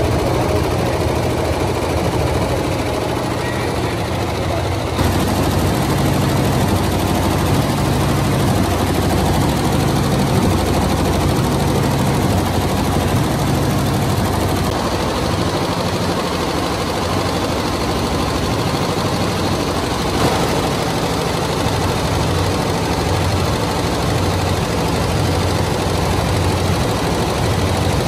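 Multi-head computerized embroidery machine running, its many needle heads stitching at high speed in a rapid, steady mechanical rattle over a low motor hum. The tone shifts slightly about 5 seconds in and again near the middle.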